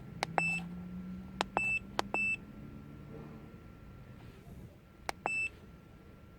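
Four short high electronic beeps, each coming just after a sharp click, as when keys are pressed on a keypad, with a low steady hum underneath. Three beeps come close together in the first two and a half seconds and the fourth about five seconds in.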